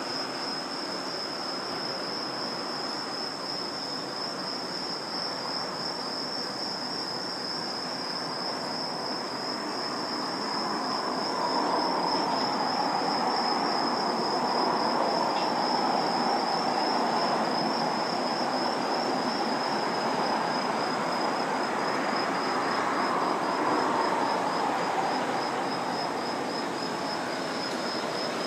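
Crickets chirping in a steady high trill that breaks into distinct pulses later on. Under it runs the broad rumble of a distant jet airliner's engines, swelling about eleven seconds in and holding until near the end.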